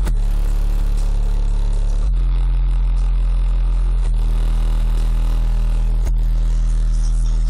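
Car stereo's 15-inch subwoofer playing deep, sustained bass notes that change pitch about every two seconds.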